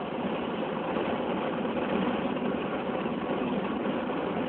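Peugeot 208 GTi's engine running steadily at speed, heard from inside the cabin as an even drone mixed with road and wind noise.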